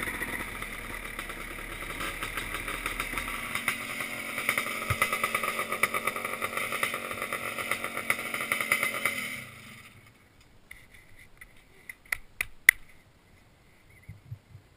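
Two-stroke 250 off-road engine running at low speed with uneven blips, then shut off about nine and a half seconds in. A few sharp clicks follow near the end.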